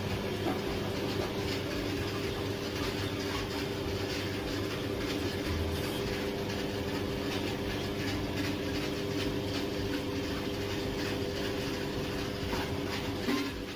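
A jewellery casting machine running while it melts gold. It gives a steady machine hum with several even tones, over a continuous light rattling.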